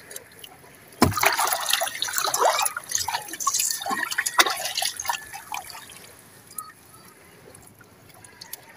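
Water splashing and dripping as a wet fishing net is handled in shallow sea water, starting suddenly about a second in and busiest for the next four seconds, then dying down to faint trickles.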